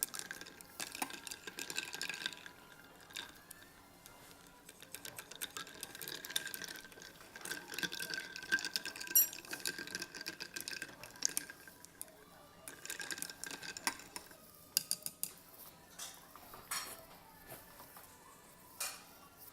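Eating utensils clicking and scraping against a bowl as ramen noodles are stirred, with many light, irregular taps. A faint steady high tone runs underneath for much of it.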